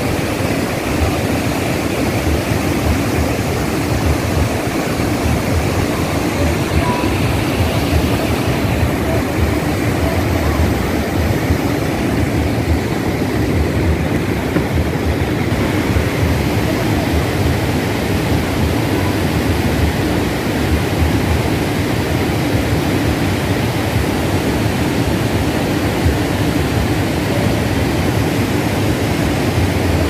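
Waterfall: a steady, loud rush of water pouring over rock ledges, heaviest in the low range.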